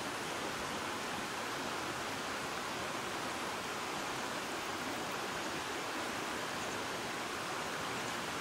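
Steady, even rushing of stream water, without breaks or changes.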